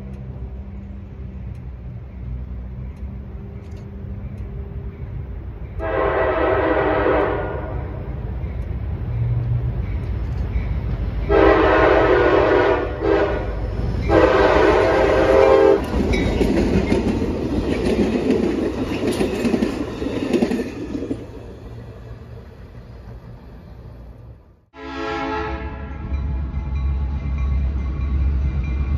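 Diesel locomotive horn blowing for a grade crossing: a long blast, a second long blast, a brief pause, then a final long blast, as the train closes on the crossing. The train then rumbles and clatters past and fades. After a sudden break near the end, another horn blast fades out over a low diesel rumble.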